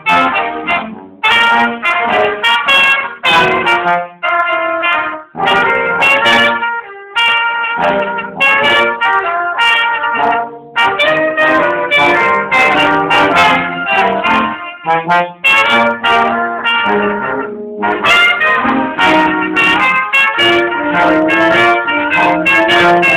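Small brass ensemble of trumpets and a trombone playing a piece together, in phrases broken by brief pauses.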